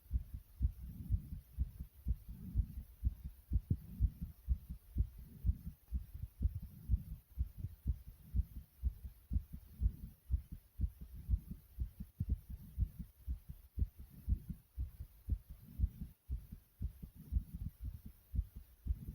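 A person's heart beating fast, about two thumps a second, heard close up as if through the chest. Heavy breathing swells and fades beneath the beats.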